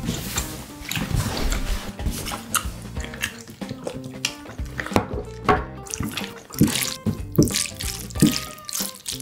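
Chopsticks stirring and lifting saucy jjapaguri noodles in a bowl: wet, sticky squelching with repeated clicks of the chopsticks against the bowl.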